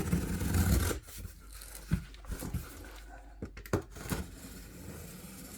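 Handling noise from opening a cardboard box and lifting out what is inside: a stretch of rubbing and rustling during the first second, then a few light knocks and taps.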